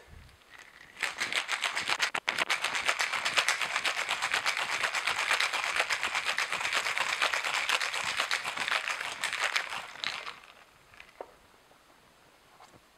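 Ice cubes rattling in a metal cocktail shaker shaken fast and rhythmically, chilling a Mai Tai of rum, orange liqueur, orgeat and lime juice. The rattle starts about a second in and stops about ten seconds in, followed by a couple of faint clicks.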